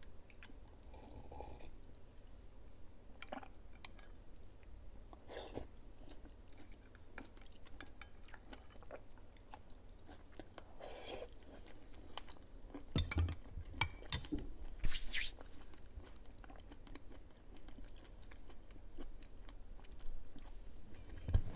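Close-miked eating sounds of soft grape jelly being chewed: scattered wet clicks and smacks of the mouth, with a few low thumps about 13 seconds in and a louder, brief hissy burst about 15 seconds in.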